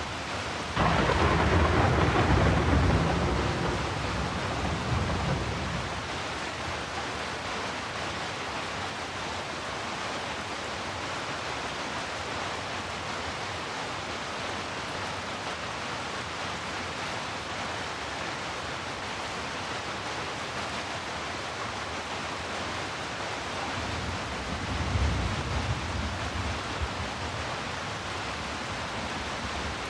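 Steady heavy rain, with a sudden clap of thunder about a second in that rumbles away over several seconds, and a fainter low roll of thunder near the end.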